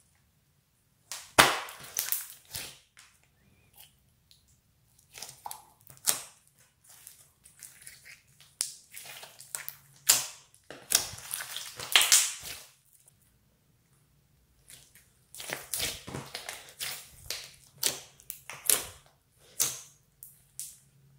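Hands kneading, pressing and poking clear glitter slime mixed with floam beads: irregular wet pops and crackles in clusters, with short pauses between. The loudest pops come about a second and a half in and again around the middle.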